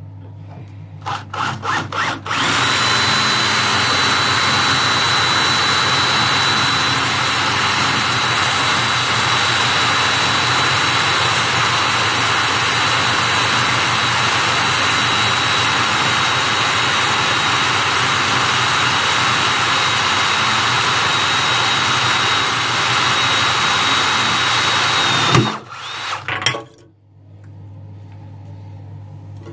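Corded electric drill with a 4 mm Bosch multi construction bit boring through a cast iron bath. It gives a few short trigger bursts, then runs steadily with a high whine for about 23 seconds, cuts off, and gives a couple more brief bursts near the end.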